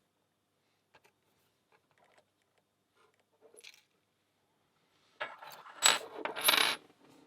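Small metal lock pins dropping and clattering with a bright ring onto a hard surface, about five seconds in. Before that, a few faint clicks come from the lock being handled.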